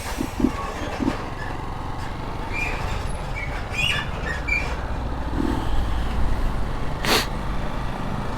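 Honda Start 190 motorcycle's single-cylinder engine running without an air filter, a steady low drone while riding, with a short sharp noise burst about seven seconds in.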